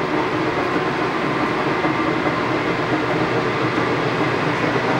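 Steady, even running noise of heavy machinery with a few faint constant hum tones, unchanging throughout with no knocks or breaks.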